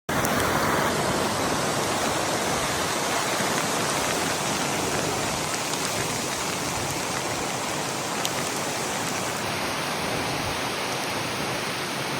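Glencar Waterfall: water falling and splashing in a steady, loud rush.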